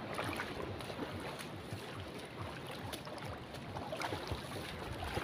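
Shallow seawater sloshing and trickling around someone wading on a reef flat, with low wind rumble on the microphone. It is a steady, fairly quiet wash, with faint small splashes here and there.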